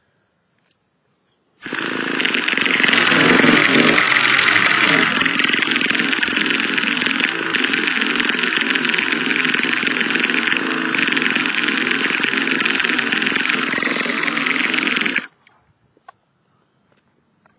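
Electric starter motor of a Traxxas T-Maxx 2.5 nitro RC truck spinning the engine in one long, steady whir of about thirteen seconds, then cutting off abruptly. The engine does not catch: it won't start, and the starter motor gives off a slight amount of smoke.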